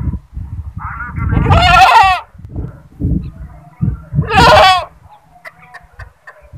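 Goat bleating loudly twice: a long wavering call about a second in and a shorter one about four seconds in, with a low rumbling noise underneath.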